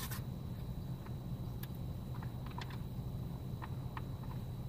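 Scattered small clicks and taps of a plastic shroud on a Honda CTX 1300 motorcycle being worked loose by hand, over a steady low hum and a faint high whine.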